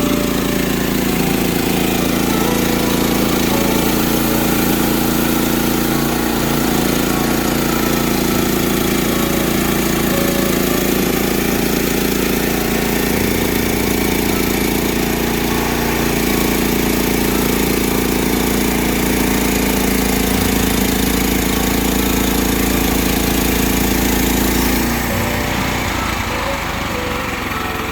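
Norwood LM30 portable bandsaw sawmill running steadily, its small engine under load as the blade cuts through a log. The engine note drops and thins about 25 seconds in.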